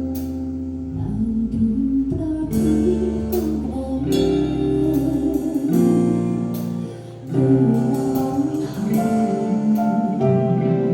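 Live band playing guitar-led music with a bass line under held chords, a sound-check run-through.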